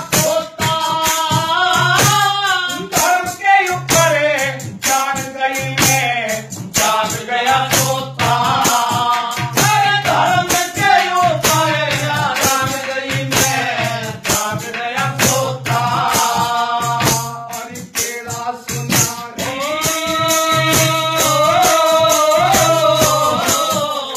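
A man singing a Haryanvi ragni, a folk song with long bending held notes, over steady rhythmic percussion with a regular low beat.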